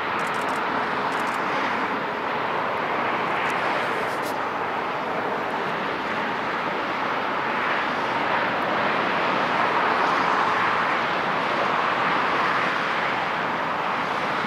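Boeing 777 freighter's GE90 jet engines heard from a distance as a steady rush of jet noise while the aircraft rolls out along the runway after touchdown.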